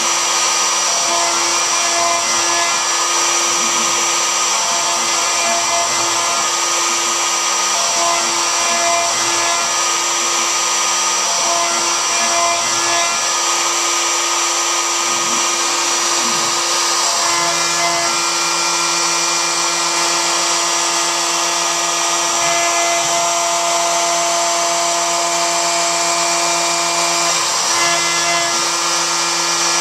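Home-built Joe's 4x4 Hybrid CNC router cutting out a part: the router spindle runs with a steady high whine and the cutting noise of the bit, while the NEMA 23 stepper motors hum in tones that start, stop and change pitch as the machine moves along its tool path.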